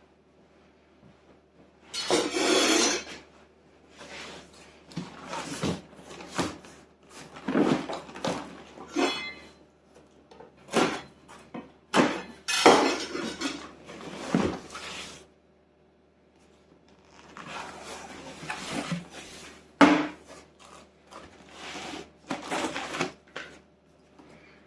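Parts of an engine rebuild kit and their packaging being handled: irregular clinks and knocks of hard parts set down and moved, mixed with rustling of wrapping, with a short lull about two thirds of the way through.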